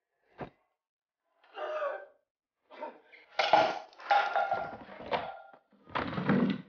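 Clatter and knocking of objects mixed with a man's strained gasps and groans, coming in several separate bursts; the last burst, near the end, has a heavier low thud.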